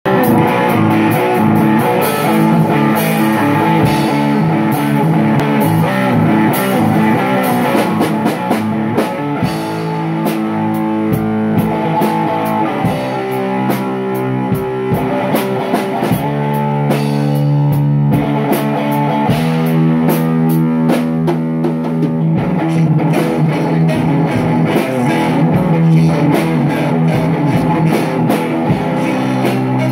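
Rock music: guitar played over a drum kit with a steady beat.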